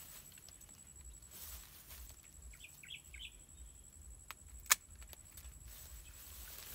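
Pruning shears snip a dragon fruit stem with one sharp click about two-thirds of the way in, after a smaller click just before. Leaves rustle around it, and a bird chirps briefly near the middle.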